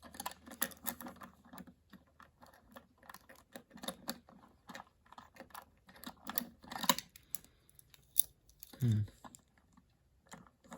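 Plastic Lego pieces clicking and rattling as hands work the plated chain of a Lego garage door back into its gear mechanism: irregular small clicks throughout, with a few louder snaps about seven and eight seconds in.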